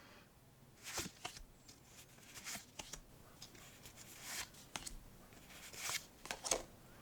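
Pokémon trading cards being slid and flipped through by hand: a string of short, irregular swishes and taps.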